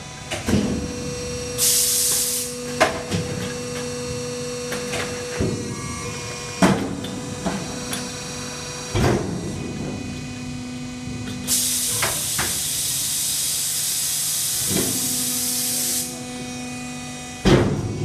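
Automatic wood shavings baler with form, fill and seal bagging running: a steady machine hum broken by clunks of moving parts every few seconds. A short hiss comes about two seconds in, and a longer hiss lasts about four seconds from about eleven seconds in.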